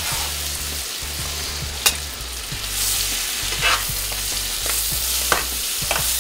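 Garlic sizzling steadily in a hot pan, with a few sharp clicks of a utensil against the pan as it is stirred.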